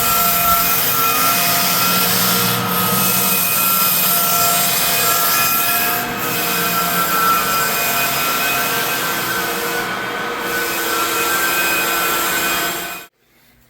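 Floor sander running steadily on a raw red oak hardwood floor, a loud grinding hiss with a steady motor whine; it cuts off suddenly near the end.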